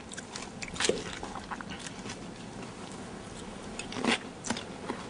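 A person eating carbonara: quiet chewing, with a few short clicks about a second in and again around four seconds in.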